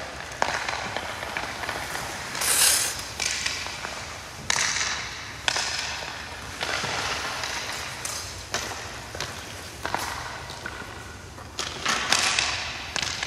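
Ice hockey goalie skates scraping on rink ice: a string of hissing scrapes, each with a sharp start, as the goalie skates and pushes across the crease.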